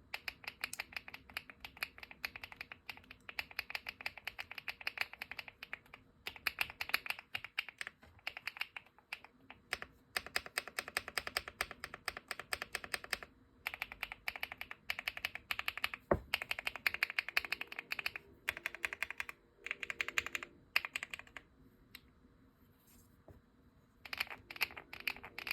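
Typing on a Rainy 75 mechanical keyboard: fast runs of keystrokes lasting a few seconds each, broken by short pauses. One keystroke about two thirds of the way in is sharper and louder than the rest, and the typing goes nearly quiet for a couple of seconds near the end before a last short run.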